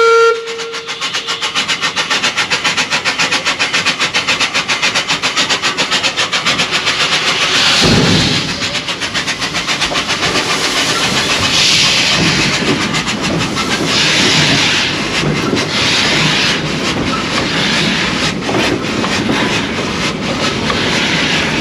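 Glover steam logging locomotive under way: the end of a steam whistle blast right at the start, then a fast, even chuffing beat from the engine and running gear. From about eight seconds in, steam hisses out in repeated bursts every couple of seconds.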